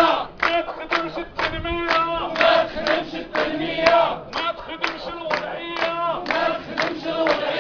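A crowd of men chanting together in unison, with rhythmic hand-clapping about twice a second.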